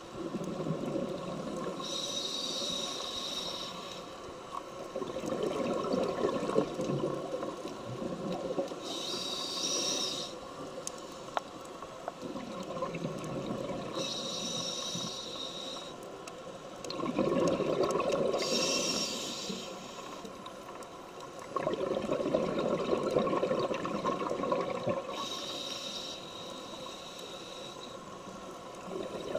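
Scuba diver breathing through a regulator underwater: short hissing inhalations alternate with longer bubbling exhalations, about five breaths in slow, even rhythm.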